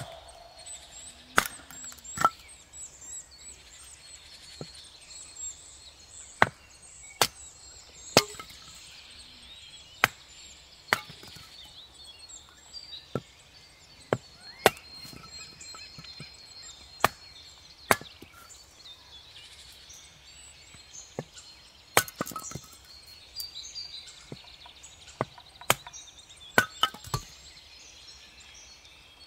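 Hatchet chopping and splitting firewood and kindling on a wooden stump chopping block: sharp single chops at irregular spacing, sometimes two close together, sometimes several seconds apart.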